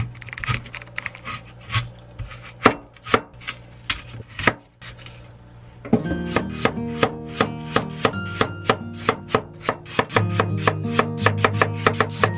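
Wide-bladed kitchen knife chopping through onion and apple onto a wooden cutting board, sharp irregular strikes. About six seconds in, plucked-string background music comes in and the chops come quicker.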